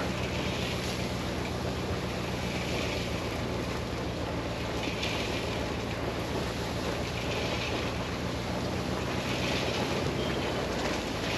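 Truck engine running steadily as the truck drives slowly, unrolling a round hay bale off its bale bed, with a steady rushing noise over the engine hum.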